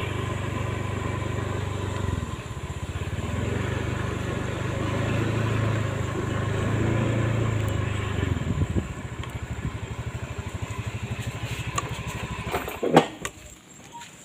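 Small motorcycle engine running as it rides over a rough, muddy dirt road, then dropping to a low, evenly pulsing idle about eight seconds in. A sharp knock comes near the end, and the engine sound stops after it.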